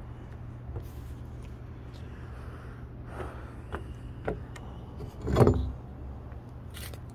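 Handling noise: a few light knocks, then a louder thump with rustling a little after five seconds in, over a steady low hum.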